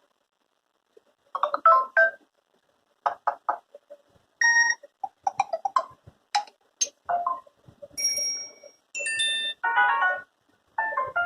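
Samsung Galaxy J7 (2015) ringtone and notification tones: after about a second of silence, a quick run of short electronic chimes and melodic note groups, each different in pitch and brightness and lasting under half a second, with short gaps between.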